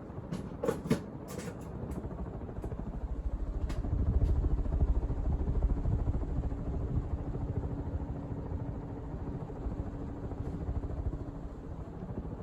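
Fasco Heat Cycler ceiling fan running steadily at its highest speed: a low, even rumble of moving air with a faint motor hum, smooth and without wobble. A few light clicks come in the first second or two.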